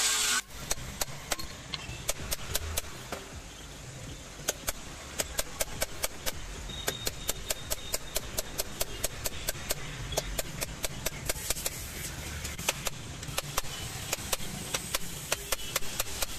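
An angle grinder sanding rusty car body metal cuts off about half a second in. It is followed by a hand hammer tapping repeatedly on the edge of a new sheet-metal patch panel, in quick, uneven strikes a few times a second.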